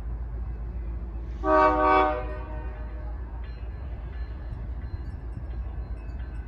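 A Nathan Airchime RS-3L three-chime locomotive horn on a BNSF Dash 9-C44CW sounding one short blast about a second and a half in, over the steady low rumble of the approaching train.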